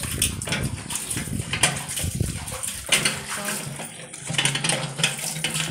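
Large aluminium cooking pots being washed by hand: the metal scraping and knocking as a pot is scrubbed and turned, with water splashing.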